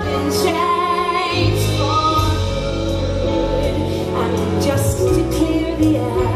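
Women singing a musical-theatre ballad live with orchestral accompaniment, the voices holding notes with vibrato over sustained low strings and bass.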